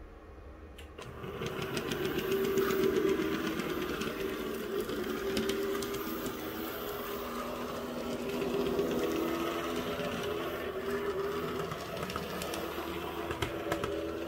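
Bowser model PCC streetcar running along the track: its small electric motor and gears whir steadily, with rapid fine clicking from the wheels on the rails. It starts about a second in.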